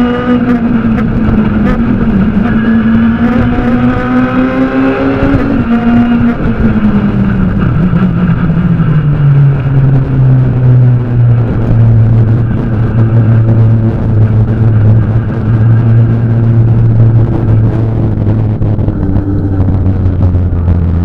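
Fiat Grande Punto S2000 rally car's naturally aspirated 2.0-litre four-cylinder engine, heard from inside the cockpit. For the first five seconds it runs at high revs in fifth gear, the pitch climbing slightly. Then the revs fall away steadily as the car slows and drops to third, and the engine settles into low, steady running for the rest.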